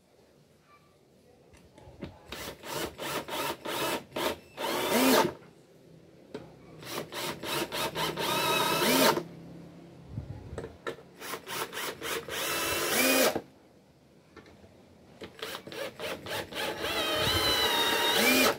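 Cordless drill/driver driving wood screws into pine boards, four screws in turn. Each begins with a few short trigger pulses, then runs steadily, rises in pitch just before the end and cuts off sharply.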